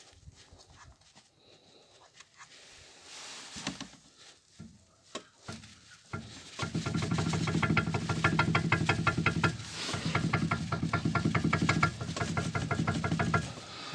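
Car running with a steady hum and a fast, even knocking, about seven knocks a second, starting about six seconds in and briefly easing near ten seconds. This is the knock the owner is troubled by; he has found play in an outer joint and hears something droning when driving.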